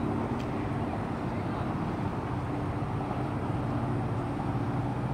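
A vehicle or boat engine running steadily nearby, heard as an even low drone with a constant hum.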